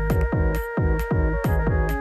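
Background electronic dance music with a fast, steady kick-drum beat, about four beats a second, under held synth notes.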